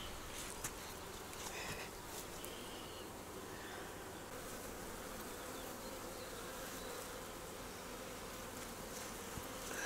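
Buckfast honeybees buzzing steadily around an opened hive during a frame-by-frame brood inspection.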